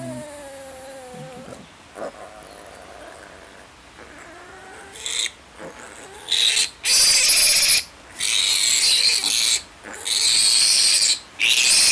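Piglet squealing as it is restrained for castration: a few quieter calls at first, then from about six seconds in loud, harsh screams in bursts of about a second, with short breaths between.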